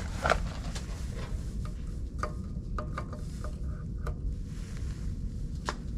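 Scattered light clicks and taps from a multimeter and its test leads being handled at an air conditioner's condenser contactor to measure its voltage, over a low steady rumble.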